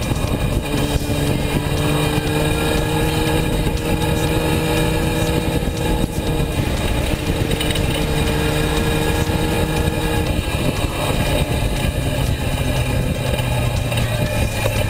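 1995 Honda CBR600F3's inline-four engine running at high revs under way, heard from on board through heavy wind rush. The engine note rises slowly, then changes and breaks up about ten seconds in.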